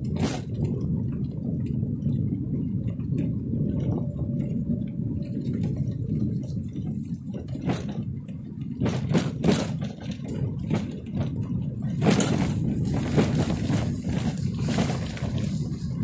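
A trishaw rolling along a dirt forest track: a steady low rumble with scattered crackling clicks, which come thicker about nine and again about twelve seconds in.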